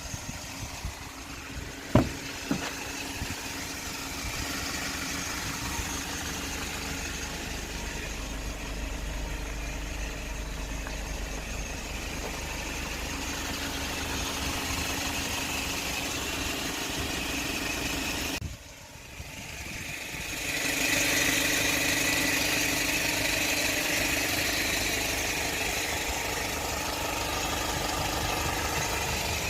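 Hyundai Porter cargo truck's engine idling steadily, with one sharp knock about two seconds in. The sound drops away suddenly for a moment about two-thirds of the way through, then comes back a little louder.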